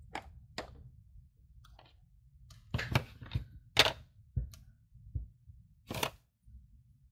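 Craft supplies being handled on a desk: a string of sharp clicks and light knocks at uneven intervals, the loudest clustered near the middle and one more about six seconds in.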